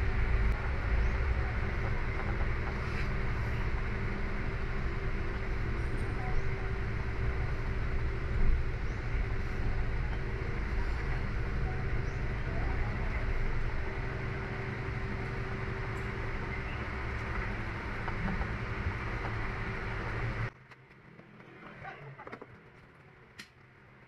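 Honda Civic's engine idling steadily, heard from inside the cabin, then cutting off suddenly about 20 seconds in, leaving only a few faint ticks.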